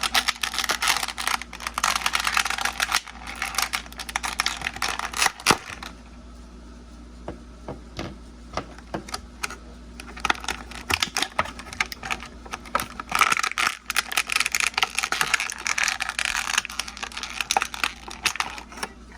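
Packaging being handled and crinkled while a figurine set is unboxed, with many small sharp clicks and crackles. There are two busy stretches with a quieter pause between them.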